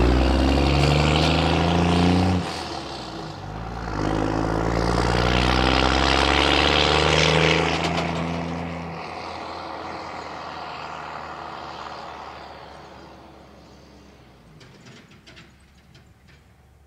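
Diesel truck engine pulling hard, dropping off briefly about two and a half seconds in, then pulling again and fading out gradually over the last several seconds.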